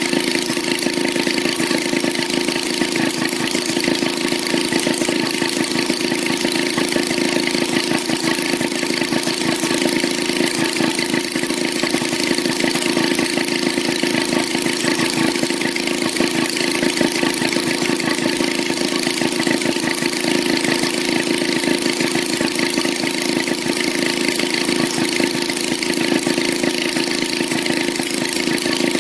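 Maytag Model 72 two-cylinder two-stroke engine running steadily with a rapid, even firing beat.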